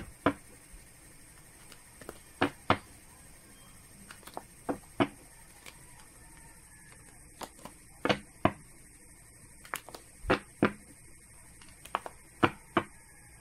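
A deck of tarot cards being shuffled by hand, with sharp taps of the cards coming in pairs about every two to three seconds.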